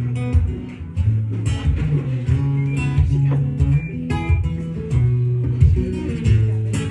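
Guitar playing the instrumental intro of a song, plucked notes over held low bass notes.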